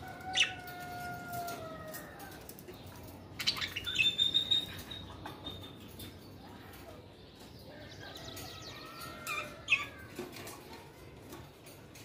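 Caged budgerigars chirping and whistling: a couple of held whistled notes sliding slightly down at the start, a burst of loud sharp chirps about four seconds in, and another sharp chirp near the end.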